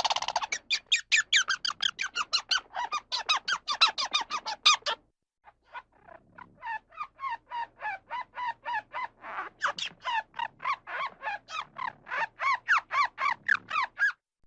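Squirrel calling in a fast, even series of sharp chirps, about five or six a second, in two long runs with a short break between them, like a squirrel's alarm chatter.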